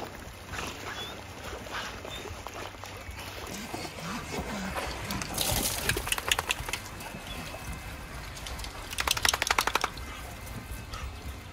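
Wet dogs shaking water off their coats: a burst of rapid flapping and spattering about five and a half seconds in, and a second, faster run of flapping about nine seconds in.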